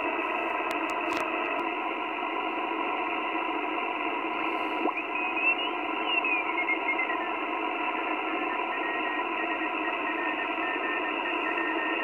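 Ten-Tec Argosy HF transceiver's receiver audio on the 20-meter band: a steady narrow-band static hiss from its speaker. As the tuning dial is turned, a thin whistling tone slides up and then back down in pitch around the middle, then holds a steady high pitch toward the end.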